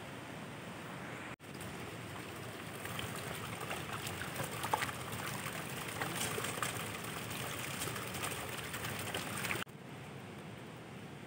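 Running water, a steady rush with many small splashes and crackles. It steps up suddenly about a second in and drops off suddenly near the end.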